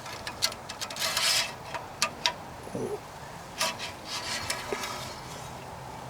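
Engine oil dipstick scraping and rattling as it is slid into its tube and drawn back out, with several sharp ticks of metal on metal.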